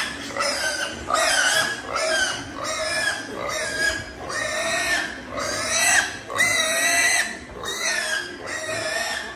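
Young pig squealing over and over, about two high squeals a second, as it is caught and held for a vitamin injection.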